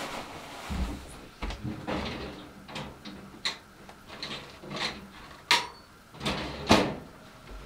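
Knocking, clicking and scraping of metal and plastic cultivator parts and a hand tool being handled during assembly, with a sharp knock about five and a half seconds in and a louder one a second later.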